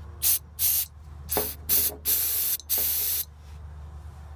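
Aerosol can of starting fluid sprayed into the air cleaner intake of an Allis-Chalmers D17 diesel tractor, giving a cold engine help to fire. Six hissing bursts: four short ones, then two longer ones of about half a second each.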